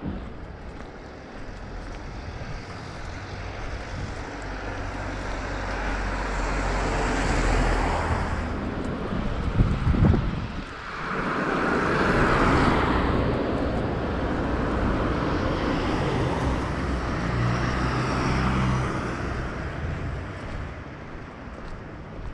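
Cars driving past on a city street: one builds up and goes by, then a short thump, then a second, louder car passes slowly, with tyre noise and a low engine hum.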